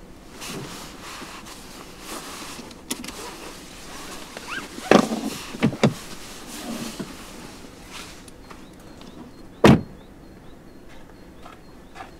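Rustling and a run of knocks and clicks from parts of a 2022 Hyundai Elantra being worked and shut: a cluster of sharp knocks about five to six seconds in, and one loud, sharp thump just under ten seconds in.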